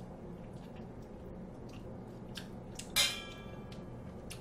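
Quiet eating sounds: faint clicks of metal chopsticks and spoon over a steady low hum, with one sharp clink against a metal bowl about three seconds in that rings briefly.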